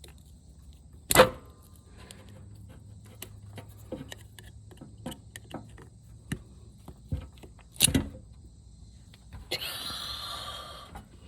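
Scattered small clicks and knocks of a transmission cooler line being worked into its clamp fitting, with two sharper knocks, one about a second in and one about eight seconds in. About a second of hiss near the end.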